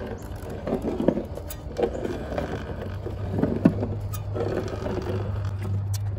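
Manual caulking gun being squeezed repeatedly to lay a zigzag bead of construction adhesive, with short clicks and creaks from the trigger and plunger rod. The sharpest come about a second in and just past the middle. A steady low hum runs underneath.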